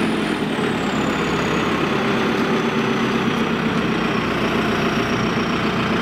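Diesel engine of a JCB 3CX backhoe loader running steadily as the machine drives, with a high thin whine that slides slowly down in pitch.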